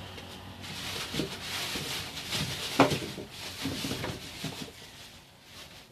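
Rustling and clattering as artichokes stored in a plastic bag are handled, with one sharp knock about three seconds in.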